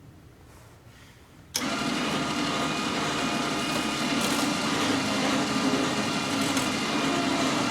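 A loud, steady mechanical running sound, an engine or motor, that cuts in suddenly about a second and a half in and holds an even pitch throughout.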